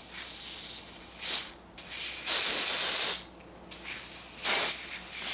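ORS Olive Oil Wig Grip spray can hissing in about four bursts of varying length, with short gaps between them.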